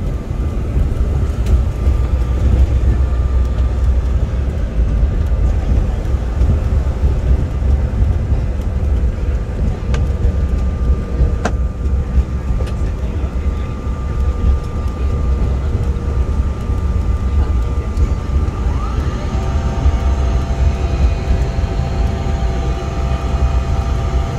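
Airliner cabin noise as the aircraft rolls along the ground: a steady low rumble with a constant engine whine. About nineteen seconds in, a short rising tone sounds and new higher whine tones join in.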